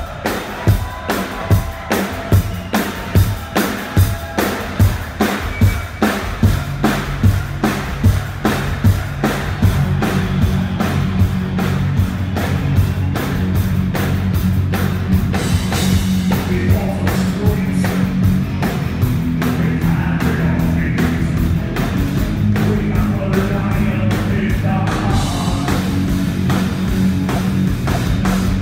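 Live heavy rock band playing at full volume: a steady drum beat leads for the first several seconds, then bass and electric guitars come in and the full band plays on, with some singing.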